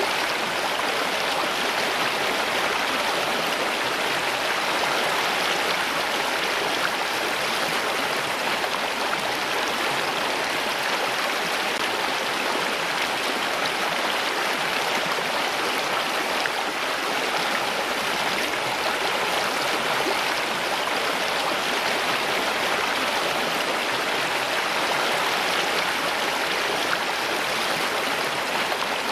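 Flowing stream water rushing and splashing steadily, an even, unbroken flow.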